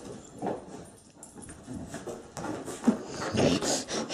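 A small puppy's breathing and scuffling sounds as it squirms and rolls on a carpet, irregular and growing louder about three seconds in.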